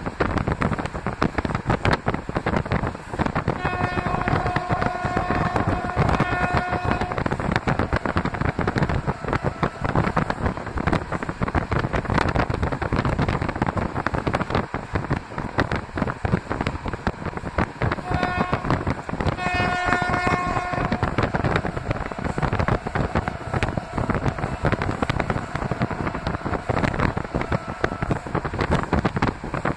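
Steady running noise and wind of a moving train, with the SM42 diesel locomotive's horn sounding three times: a long blast a few seconds in, then a short blast and a longer one around eighteen to twenty seconds in.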